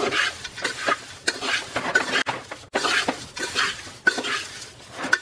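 A metal spatula stirring crisp roasted poha (thin flattened rice flakes) in a large aluminium pot, in repeated strokes: the dry flakes rustle and the spatula scrapes and clinks against the pot.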